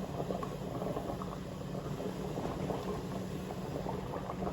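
Pot of spaghetti water boiling, a steady crackling bubble over a low steady hum.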